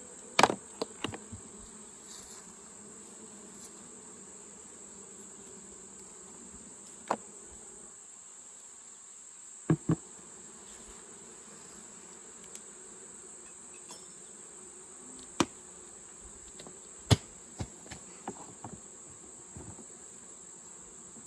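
Honeybees buzzing around an open hive, a steady hum with a steady high-pitched whine above it. Scattered sharp knocks and clicks from the hive tool prying the wooden boxes and frames, two close together about ten seconds in.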